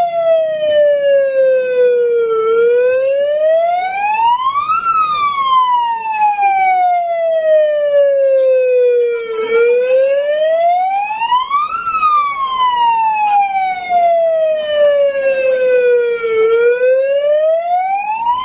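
Electronic siren wailing in a slow repeating cycle: the pitch climbs for about two seconds, then falls away for about four, about every seven seconds.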